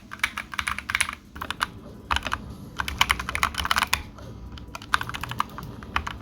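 Typing on a Glorious GMMK 2 mechanical keyboard fitted with factory-lubed Glorious Fox linear switches and two layers of internal foam: a fast, continuous run of keystroke clacks, broken by two short pauses.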